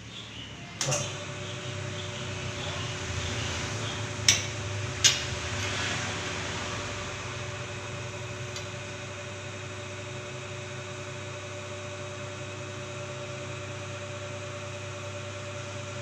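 Electric motor of a pipe and hollow-section rolling machine, starting about a second in and then running with a steady hum. Two sharp clicks come a little under a second apart, around four to five seconds in.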